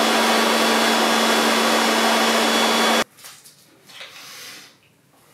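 Corded electric leaf blower running at full power, blowing air into a giant balloon: a steady rush of air over a constant motor hum, which cuts off abruptly about three seconds in.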